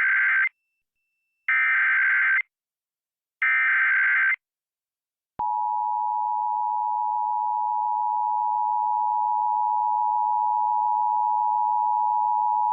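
Emergency Alert System tones on FM radio: the end of one SAME header data burst, then two more one-second bursts of data about two seconds apart. After a short gap, about five seconds in, the steady two-tone EAS attention signal comes on and holds. The tones announce a Child Abduction Emergency (AMBER Alert).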